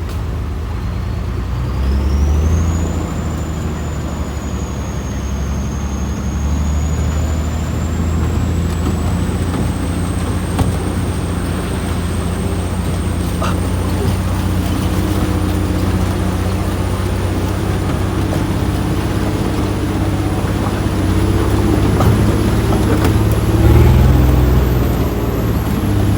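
A vehicle engine running steadily under load, with a thin high whine that slowly climbs in pitch. The engine note swells briefly about two seconds in and again near the end.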